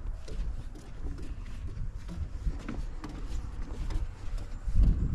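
Footsteps of people walking, over a low rumble that grows louder near the end.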